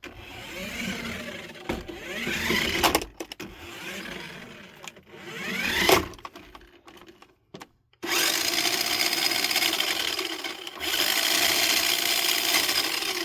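Toy remote-control Chevrolet Camaro's replacement electric motor and gears whirring as the car drives. It speeds up and slows in short runs with rising and falling pitch, stops briefly, then about eight seconds in runs steadily at full speed.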